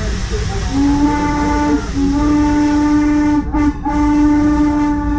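Steam locomotive whistle blowing two long blasts, a short one and a final long one, the standard long-long-short-long signal for a grade crossing, over the steady low rumble of the train running.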